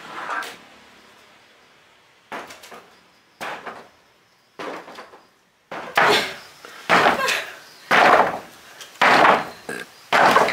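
Repeated sharp knocks or blows, a few scattered ones at first, then a steady run of heavy strikes about once a second.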